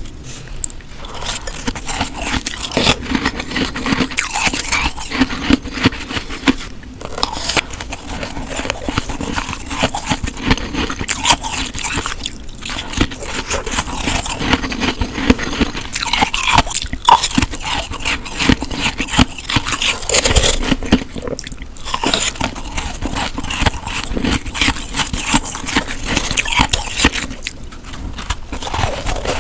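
Snow being bitten and chewed close to the microphone: dense, continuous crunching and crackling, with a few short pauses between bites.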